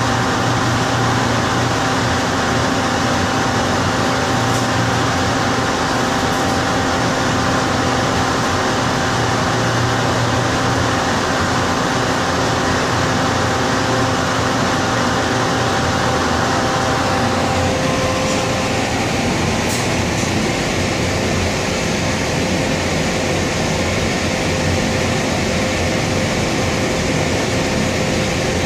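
Loud ventilation fan of a Maspero traction inclined-elevator car running steadily, mixed with a few steady hum tones. About 17 seconds in, part of the noise drops away and one of the hum tones stops, while the fan keeps running.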